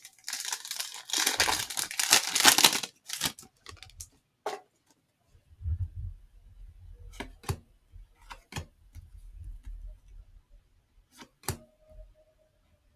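A trading card pack wrapper is torn open in a dense crinkling rip lasting about three seconds. A few sharp clicks and taps of cards being handled follow.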